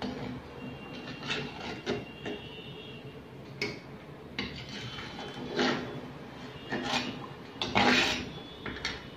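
A perforated metal skimmer scraping and knocking against the inside of an earthenware pot as fried garlic slivers are scooped out of the oil, in separate strokes about a second apart, the loudest near the end.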